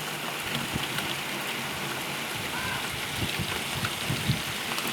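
Heavy rain pouring down in a sudden downpour, a steady hiss, with a few louder drops landing close by in the second half.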